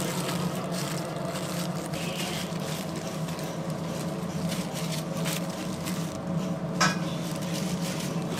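Vinyl food-service gloves rustling while potato croquette balls are rolled in rice flour in a steel bowl and set down on a tray, over a steady low kitchen hum. Near the end comes one short sharp knock with a brief ring.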